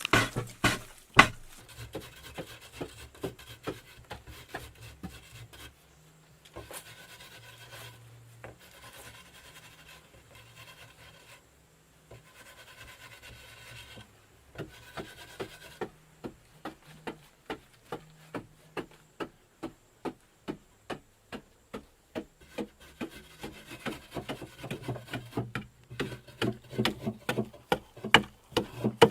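Wood being scraped and rubbed in many short strokes, with stretches of rasping. Louder, quicker knocking strokes come near the end.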